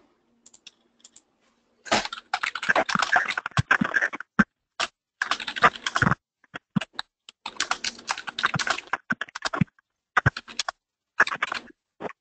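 Computer keyboard typing in several quick bursts of key clicks, with short pauses between them.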